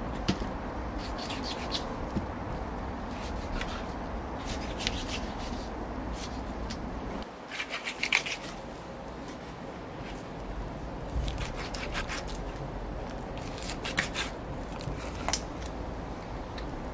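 Lamb being handled and cut by hand: irregular rubbing and scraping with scattered clicks and light knocks, the loudest cluster about halfway through, over a steady low background noise.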